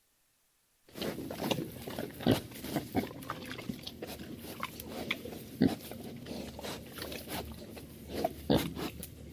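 Stock sound effect of pigs grunting, a dense run of short, irregular grunts starting about a second in.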